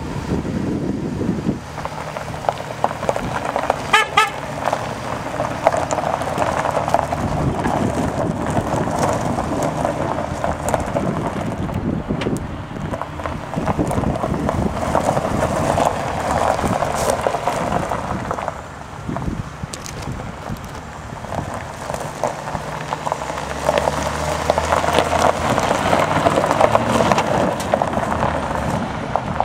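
Chevrolet Silverado 3500 work truck's engine running, with a brief horn toot about four seconds in. Near the end the engine note grows stronger as the truck pulls away over gravel.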